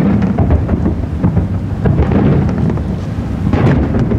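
Aerial firework shells bursting in quick succession: a continuous deep rumble of overlapping booms, with sharper cracks and crackle among them and a cluster of them about three and a half seconds in.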